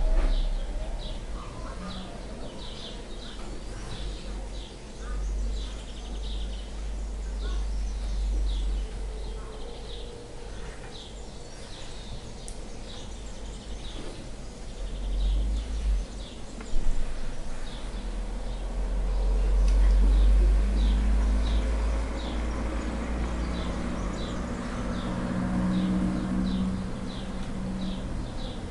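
A small bird chirping over and over, about two or three short chirps a second, over a steady low rumble.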